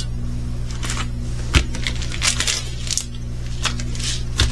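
Small plastic bags of diamond-painting drills and kit parts being handled, rustling and clicking, with two sharper knocks (one about a second and a half in and one near the end), over a steady low electrical hum.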